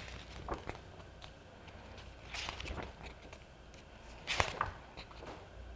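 Paper pages of a softcover picture book being turned by hand: soft rustles, the louder ones about two and a half and four and a half seconds in.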